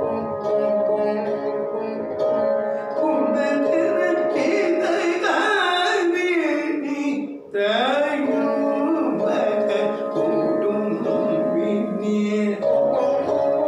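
Saraswati veena played in Carnatic style, its notes sliding and bending in gamakas, with a man singing along. The sound drops out briefly about halfway through.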